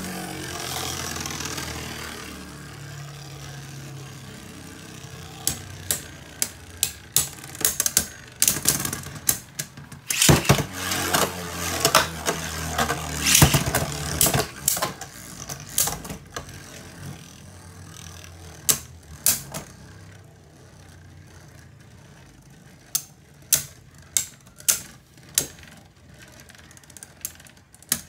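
Two Beyblade Burst spinning tops whirring and clashing in a plastic stadium, with sharp plastic clacks as they strike each other and the stadium. The clacks come thick and fast in the middle, then as evenly spaced clicks about two a second near the end.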